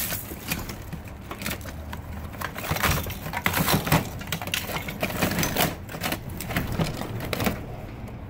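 Hands rummaging through a plastic tote full of toys and tools: irregular clattering and knocking as hard objects are shifted and bump against each other and the bin.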